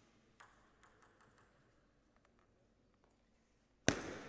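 Table tennis ball bounced lightly a few times, faint sharp ticks, then a pause before one loud sharp hit near the end as the serve is played, ringing in the hall.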